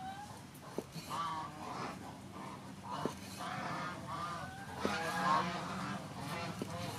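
A cleaver chopping through sea snail meat onto a wooden cutting board, four single strokes about two seconds apart. Bird calls repeat in the background throughout and are the loudest sound.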